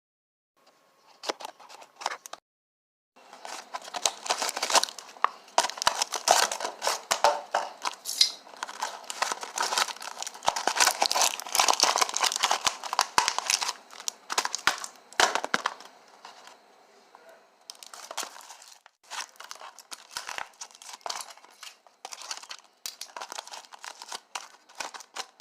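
Packaging being crinkled, crumpled and torn open by hand in an unboxing: a dense run of crackling, heaviest for the first half, then lighter handling with a short pause about two-thirds of the way in.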